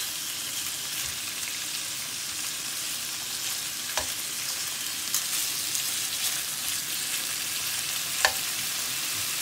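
Bacon sizzling as it fries in a pan of butter and oil, a steady hiss, with two sharp taps about four seconds apart.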